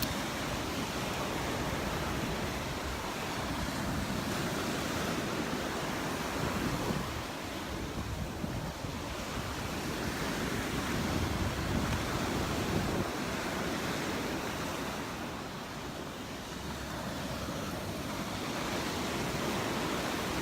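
Gulf of Mexico surf washing onto the beach, a steady rush that swells and eases over several seconds, with some wind on the microphone.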